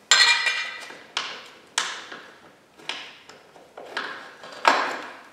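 A series of about seven sharp metallic clanks and clinks, each ringing briefly, the first and last the loudest, as loose metal parts at the rear of a dirt bike's swingarm are handled.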